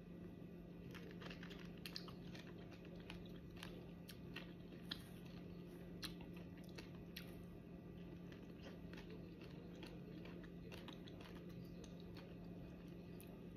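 Faint, soft chewing of a ripe loquat, with small wet mouth clicks every second or so over a low steady hum.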